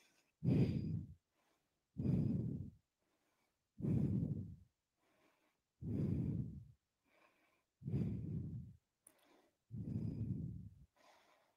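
A woman breathing hard and regularly from the effort of holding a plank, about one breath every two seconds, six in all, with silence between breaths.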